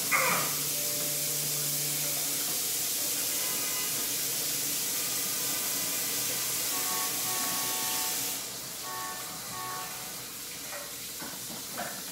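Kitchen tap running in a steady hiss, shut off about eight seconds in.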